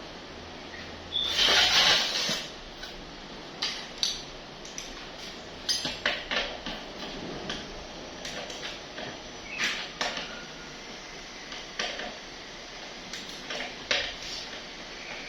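Metal tools and small parts clinking and knocking during hands-on repair work, scattered and irregular, with a louder noisy burst lasting about a second near the start.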